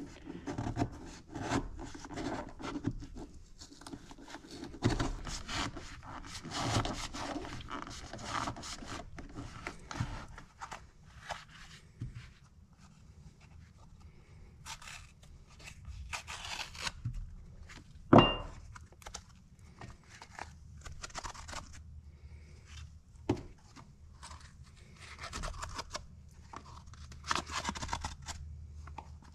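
Knife blade scraping and cutting through the pleated paper media of a cut-open spin-on oil filter, freeing it from the end cap in short irregular rasps and tears. One sharp clink stands out about 18 seconds in.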